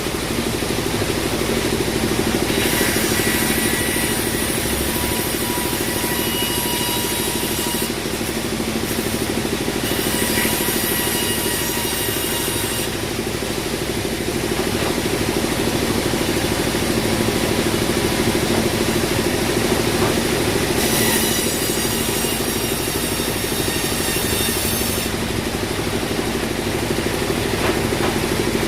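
Band sawmill running with a steady drone, the blade cutting through a teak log in three stretches of a few seconds each, each cut adding a high hissing whine.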